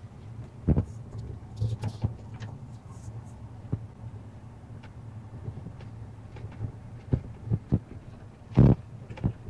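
Steady low hum of a car driving, heard from inside the cabin, with scattered short knocks and thumps; the loudest comes near the end.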